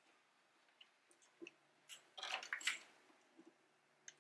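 Fuel rail and injectors being worked loose from a Honda Accord's intake manifold. Light clicks and handling noises, then a short run of scraping, squishing sounds about two seconds in as the injectors pull out of their ports.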